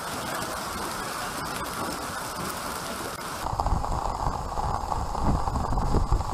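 Hail and rain pelting the ground in a dense, steady hiss. About three and a half seconds in, the sound changes abruptly to a duller, uneven rumble with little hiss.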